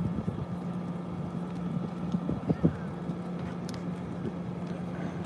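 Steady low engine hum, with a few short knocks about two seconds in.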